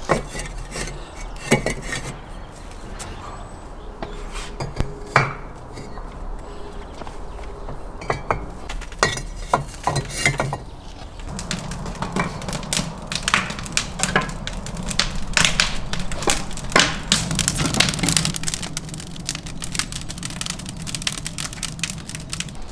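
Fired clay bricks knocking and clinking against one another as they are stacked by hand: a string of sharp clicks and knocks, coming thicker from about halfway, over a low steady hum.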